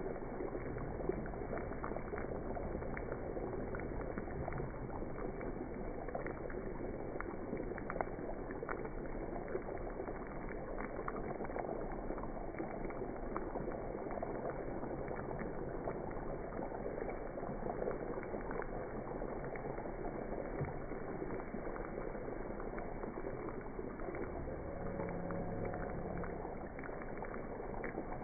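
Hot butter and oil sizzling and bubbling steadily in a heavy frypan as a whole cauliflower is spoon-basted, with a constant crackle and a few light clicks of the metal spoon against the pan.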